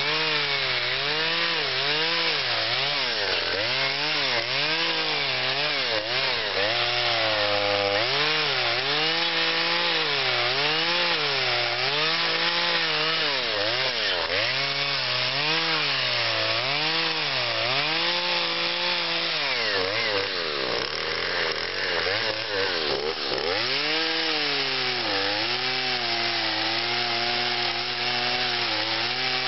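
Husqvarna carving chainsaw's two-stroke engine cutting into cottonwood, its pitch rising and falling about once a second as the throttle is worked. About two-thirds of the way through it drops to a lower, wavering pitch for a few seconds, then holds a steadier pitch near the end.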